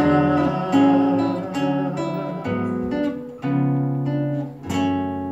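Acoustic guitars playing the closing chords of a song, strummed about once a second, with a last chord struck near the end and left ringing.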